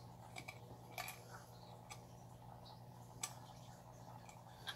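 Small motorized display turntable rotating: a faint steady low hum with three light ticks, about one, three and four and a half seconds in.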